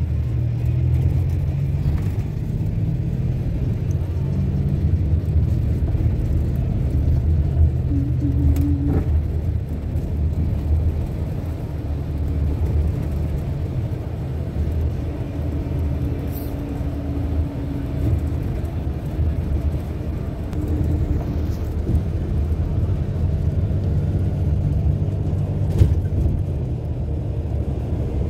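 Steady low rumble of a moving road vehicle heard from inside the cabin: engine and road noise, with a few short faint hums.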